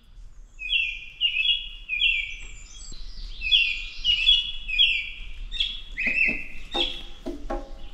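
A bird singing a run of repeated high, downward-slurred notes. Music comes in underneath near the end.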